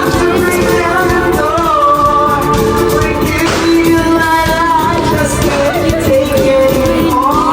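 Pop song with a sung vocal line over a full band and a steady beat.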